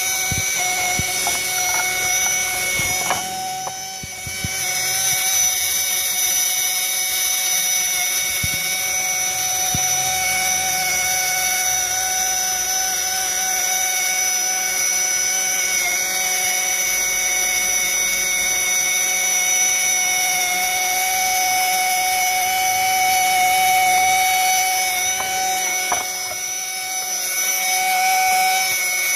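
Handheld power tool spinning a rotary brush against an oily engine valve cover, a steady high motor whine as it scrubs off baked-on oil sludge. It eases off briefly about four seconds in and again near the end.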